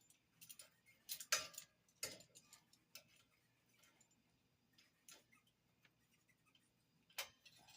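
Scattered sharp clicks of vise-grip locking pliers being handled and set, about half a dozen spread irregularly, the loudest about a second in.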